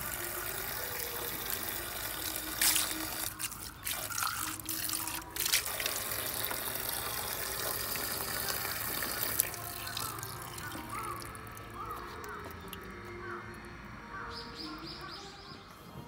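A thin stream of water pouring from a dragon-head spout into a handheld ladle and onto stone: a steady splashing trickle, with a few sharper splashes or knocks in the first several seconds. It grows quieter past the middle.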